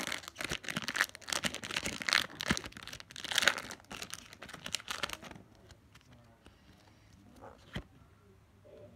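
Foil wrapper of a Pokémon Evolving Skies booster pack crinkling and tearing as it is ripped open, for about five seconds; after that the sound drops to quiet card handling with a couple of light ticks.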